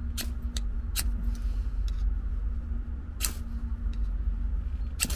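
A knife blade scraping in a few short, sharp strokes at uneven intervals, the longest about three seconds in, over a steady low rumble.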